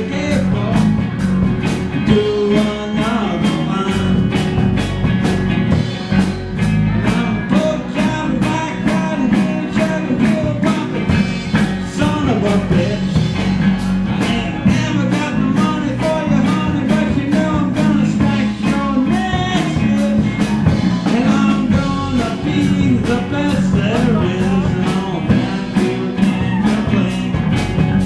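Live rock-and-roll band playing, the drum kit and cymbals keeping a steady beat, with singing over it.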